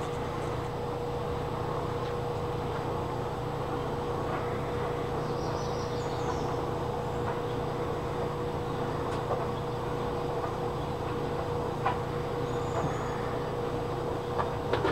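Steady low mechanical hum with a constant mid-pitched tone running through it. A few faint high chirps come about six seconds in and again near the end.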